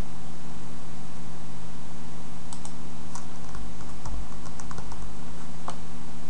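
Computer keyboard keys clicking in a short, irregular run of about a dozen keystrokes, starting about two and a half seconds in, over a steady hiss and low electrical hum.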